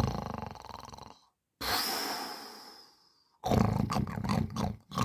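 A man snoring: a rattling snore, then a hissing breath with a faint whistle that fades out. About three and a half seconds in, a loud, fluttering, rattling snore starts.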